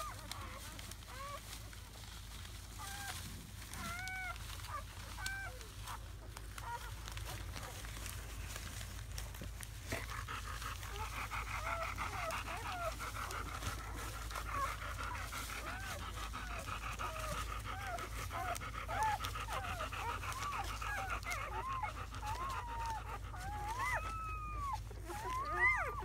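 Newborn German Shepherd puppies whimpering and squeaking in short, high, arched cries. The cries come only now and then at first and become almost constant from about ten seconds in, with a louder burst near the end.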